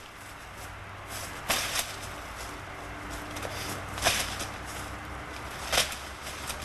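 Three sharp swishing snaps from karate training movements, about a second and a half to two and a half seconds apart, over a low steady rumble.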